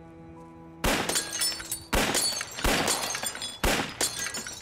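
Four pistol shots within about three seconds, each smashing a glass bottle in a burst of shattering, tinkling glass.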